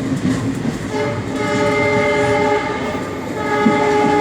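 Train horn sounding two blasts, the first about a second in and the second near the end, over the steady noise of the moving train.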